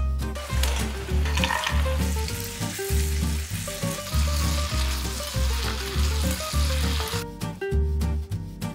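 Dried red chilies, then chicken pieces, sizzling in hot oil in a pan as they are stirred with a spatula. The sizzle stops about seven seconds in, leaving jazzy background music with a plucked bass line.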